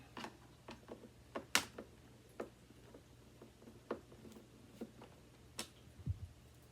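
Scattered small clicks and light knocks as the parts of a Hoover WindTunnel 2 upright vacuum are handled and taken apart in the hunt for a clog. The vacuum's motor is not running.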